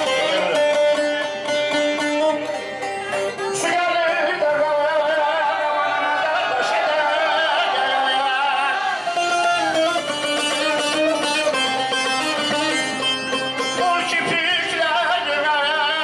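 A man singing a Middle Eastern-style song into a microphone, his voice wavering and ornamented, over a plucked string instrument, amplified through a PA.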